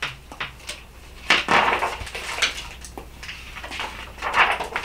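A hardcover picture book being opened and its pages turned: paper rustling in a few bursts, with some short clicks from handling the book.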